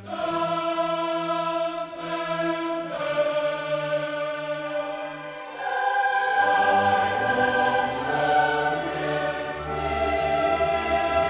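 Choral music: a choir singing long held chords over an orchestra, the harmony shifting every few seconds.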